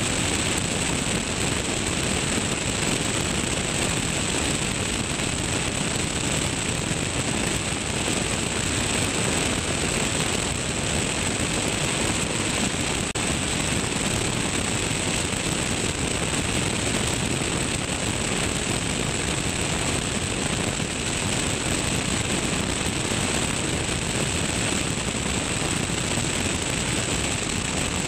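Steady rush of airflow over a camera mounted outside a Tecnam P2002 Sierra's wing in level flight, blended with the drone of its engine and propeller, and a thin, high, steady whine above it all.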